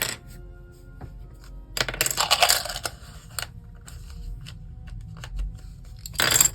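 Loose plastic LEGO pieces rattling and clicking as they are picked through and handled, with a dense clatter about two seconds in and another near the end. Faint steady background music runs underneath.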